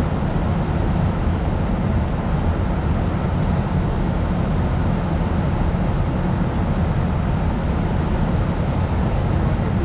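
Steady rush of a fast-flowing river running over rapids, heavy in low rumble.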